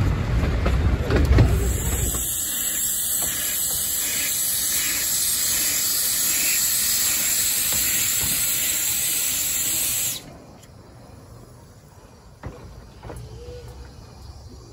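Steam from a small Hunslet quarry saddle-tank steam locomotive, hissing loudly from around its cylinders as it moves off with the drain cocks open, then cutting off suddenly. Before it, briefly, the low rumble of a narrow-gauge railway carriage on the move.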